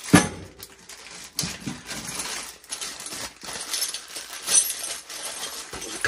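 Plastic bag of a seatbelt hardware kit being torn open and crinkled, with its steel bolts, washers and brackets clinking together as they are handled and tipped out onto a metal floor pan. A sharp knock just after the start is the loudest sound.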